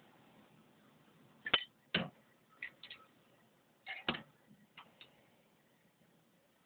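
Sharp metal clicks and clinks of hand tools on the rocker arms and adjusting screws of a Mercedes truck engine's open valve train during a valve clearance adjustment. The clicks come singly and in pairs, the loudest about a second and a half and two seconds in, with another pair about four seconds in.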